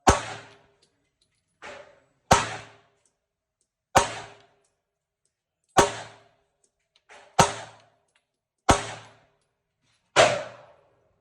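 Glock 19X 9mm pistol with a Mass Driver compensator fired seven times in a steady string, about one and a half seconds apart, each shot ringing briefly off the indoor range. Two fainter shots come in between, about a second and a half in and about seven seconds in.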